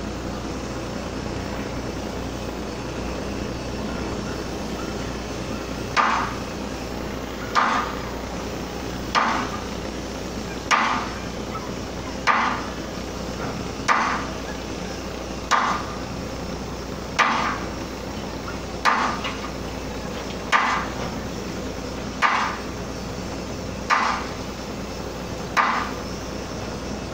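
Hammer blows struck at an even pace, one about every second and a half, starting about six seconds in, over a steady low machinery hum.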